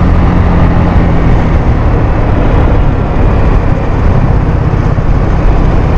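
Suzuki Skydrive scooter's single-cylinder engine running steadily under throttle on a hilly road, its even drone fading somewhat about halfway through under a loud rush of noise.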